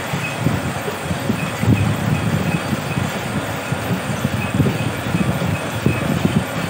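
Grass-mat weaving machine running, a steady rapid clatter of its mechanism with light ticks over it.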